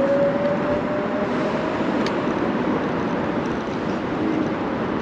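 Steady road and wind noise from a moving electric bike, with a thin whine that rises slightly in pitch and fades in the first second.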